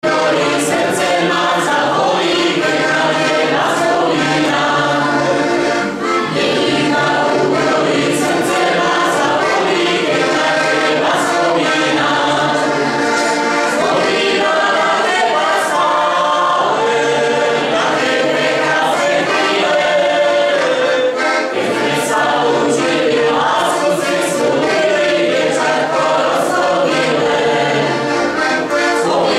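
A small group of voices singing a Slovak folk song together in harmony, accompanied by an accordion.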